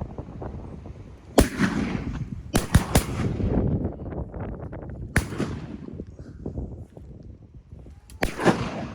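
Shotguns firing at ducks: about six or seven shots, one, then three in quick succession about two and a half seconds in, another around five seconds in and a last one or two near the end, each with a short echoing tail.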